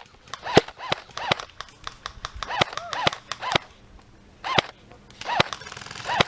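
Airsoft guns firing scattered single shots: about ten sharp snaps at irregular intervals.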